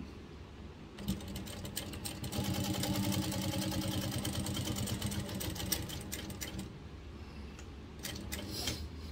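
Juki 8700 industrial flatbed sewing machine stitching through leather a little thicker than upholstery leather. It starts about a second in and runs at a steady rapid stitch for several seconds, then eases off, with a short second run near the end.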